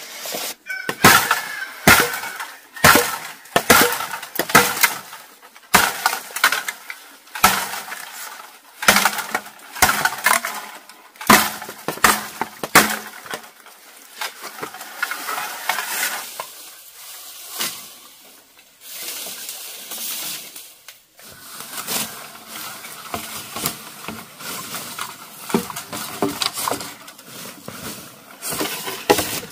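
Bamboo cracking and breaking: a string of sharp cracks about once a second, giving way about halfway through to quieter rustling and small snaps.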